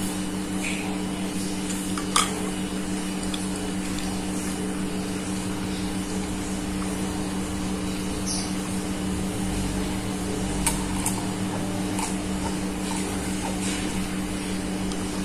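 A steady low electrical hum, with a sharp click about two seconds in and a few faint clicks later: a metal spoon against a plastic cup of grass jelly and teh tarik, and quiet sipping from it.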